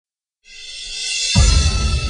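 Music fading in about half a second in: a swelling wash of high sustained tones, joined by a deep bass hit just over a second in that carries on as a low pulse.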